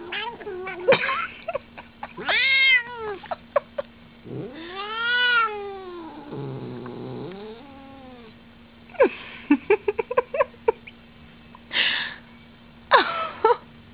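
Domestic cat yowling: two drawn-out calls that rise and then fall in pitch, then a lower, rougher stretch. After that comes a quick run of short, clipped sounds and two brief calls near the end.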